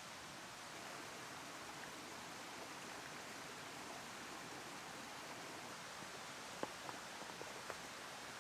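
Faint, steady rushing outdoor background noise, with a quick run of about six light clicks and taps near the end from camping gear being handled.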